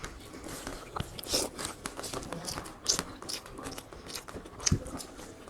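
Beef curry and rice being eaten: irregular chewing and mouth sounds with small clicks and scrapes, a few of them louder.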